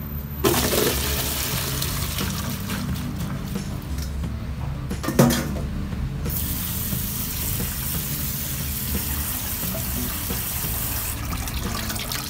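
Water running and splashing into a stainless-steel sink as washed chili peppers drain in a plastic colander. There is a single sharp knock about five seconds in.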